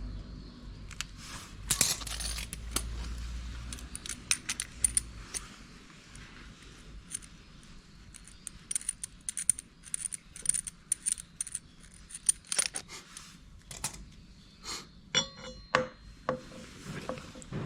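Small metal brake parts from a Suzuki Address 125's front brake clinking and tapping as they are handled and set down, giving an irregular series of light metallic clicks. About fifteen seconds in, one part gives a short ringing metallic note.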